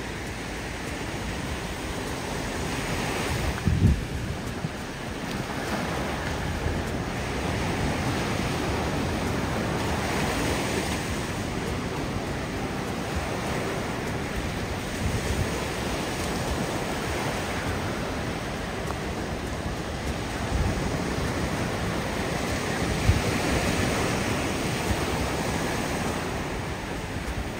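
Ocean surf breaking and washing up the sand, a steady rushing that swells and eases as each wave comes in. Wind buffets the microphone now and then, hardest about four seconds in.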